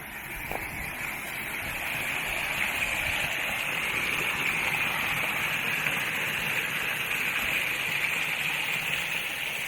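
Clear mountain stream rushing over rocks, a steady rush that grows louder over the first couple of seconds and then holds.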